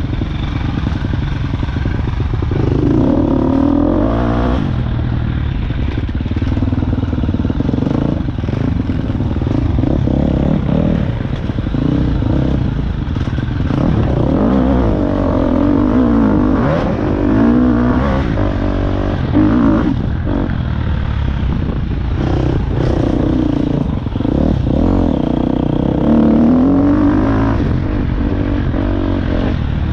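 Engine of a 900 being ridden, heard from the rider's seat, running continuously and repeatedly revving up and easing off, with knocks and rattles along the way.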